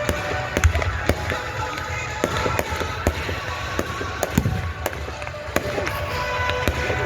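Consumer fireworks going off: a dense run of sharp pops and crackles, with a heavier bang about four seconds in.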